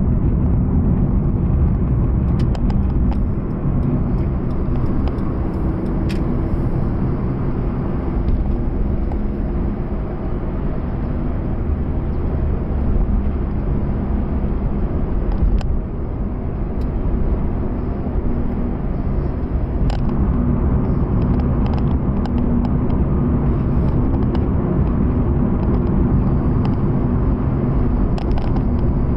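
Cabin noise inside a 2019 Proton Saga while it is driven at a steady cruise: a steady low rumble of the 1.3-litre four-cylinder engine and tyres on the road, with a few faint ticks.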